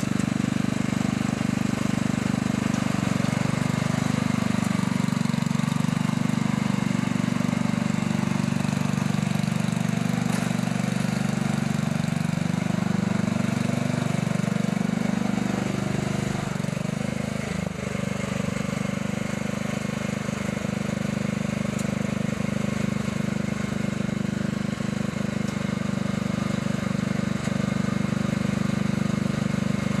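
Lawnmower engine running steadily, its pitch wavering up and down from a few seconds in until just past halfway, then holding steady.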